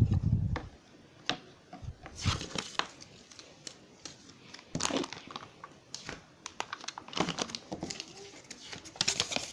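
Clear plastic packaging around a toy train car crinkling as it is handled and set on the table, with scattered light clicks and knocks. A dull thump comes right at the start.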